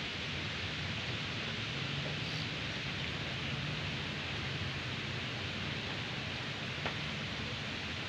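Steady outdoor background hiss with no distinct source, and one faint click about seven seconds in.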